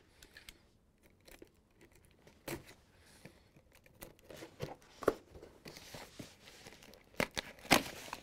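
Box cutter slicing through the packing tape along a cardboard carton's seam, with tape crackling and scattered sharp clicks and snaps of blade and cardboard. The loudest snaps come near the end.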